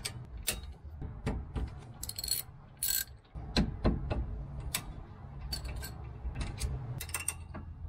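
Socket wrench working a bolt on a Mercedes Sprinter's rear brake caliper: irregular sharp metallic clicks and clinks, with two brief rasps about two and three seconds in.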